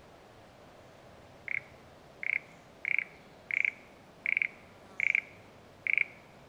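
A frog calling in a series of seven short, rasping croaks about two-thirds of a second apart, starting about a second and a half in.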